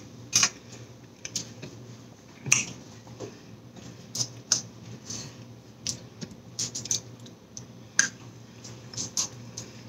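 Eating a thick milkshake from a plastic dome-lidded cup: about a dozen scattered sharp clicks and mouth smacks at irregular intervals, over a faint steady hum.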